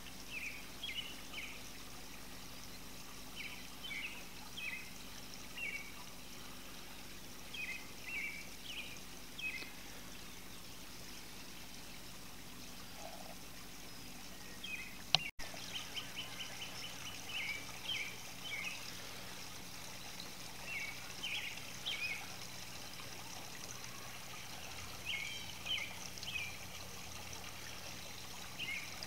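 Garden statue fountain trickling steadily, with a small bird singing short chirpy phrases every second or two over it. One sharp click about halfway through.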